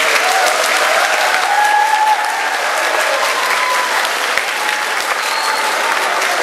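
Crowd applause: many people clapping at once, steady throughout.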